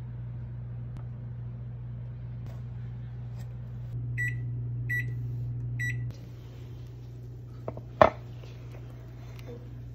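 Samsung oven's control panel beeping three times, about one beep a second, as its keys are pressed, over a steady low hum. A single sharp knock near the end is the loudest sound.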